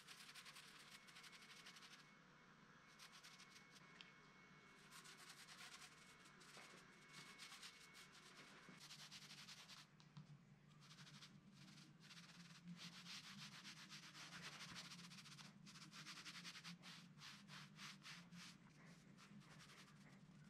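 Small paint roller rolling paint back and forth over plywood: a faint, quick, rasping rub in runs of strokes, with brief pauses.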